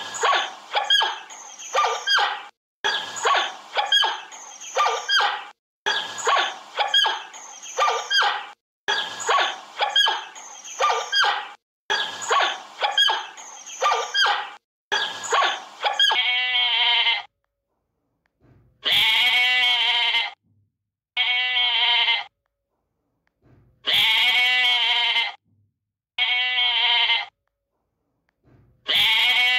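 A looped clip of an animal's rapid, short, high calls repeats about every three seconds. About two-thirds of the way through, a goat takes over, bleating about six times, each bleat a second or so long with a wavering, quavering pitch and short gaps between.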